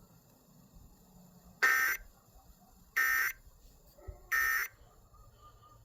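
Emergency Alert System end-of-message code: three short, harsh buzzing data bursts about a second apart, signalling that the alert has ended.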